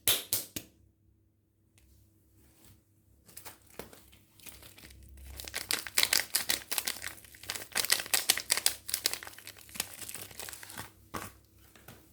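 Soap packaging being crinkled and torn open by hand: a few sharp crackles, a short pause, then a long run of dense crackling and tearing that thins out near the end.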